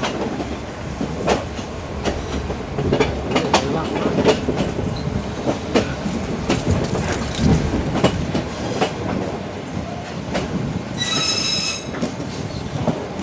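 Passenger train running, heard from an open carriage window: a steady rumble and rattle of the carriages with irregular knocks and clacks from the wheels on the rails. Near the end, a high steel wheel squeal lasts about a second as the train rounds a curve.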